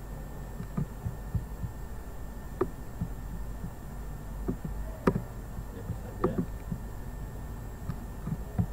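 Steady low hum with scattered computer mouse and keyboard clicks about a second apart while a document is edited and scrolled, the loudest click about five seconds in.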